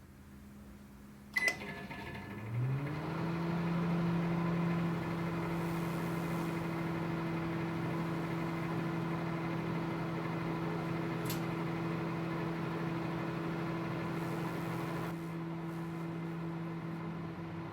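Microwave oven switched on with a click, then running with a steady hum as it heats a light bulb inside. There is a brief faint tick about eleven seconds in.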